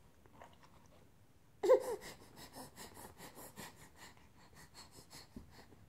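A baby's short pitched vocal sound about two seconds in, followed by a run of soft wet mouth clicks and breaths as she smacks her lips and works her tongue over a mouthful of food.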